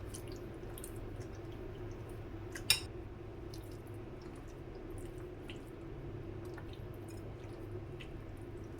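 Raw chicken pieces being mixed into a wet spice-and-vinegar marinade: faint squelching and light ticks, with one sharper click just under three seconds in, over a steady low hum.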